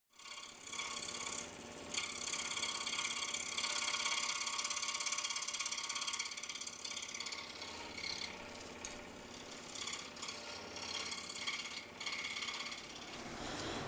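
Scroll saw cutting thin basswood, sped up about eight times, so the blade's strokes run together into a fast, high-pitched mechanical chatter.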